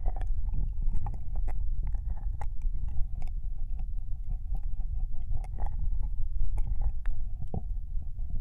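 Ear-licking ASMR into a binaural microphone: wet licking, lip smacks and tongue clicks close against the ear, coming irregularly several times a second over a steady low rumble.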